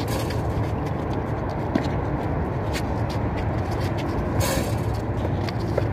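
Steady low background rumble and hum, with a few sharp knocks of a basketball bouncing on the concrete court and hitting the rim.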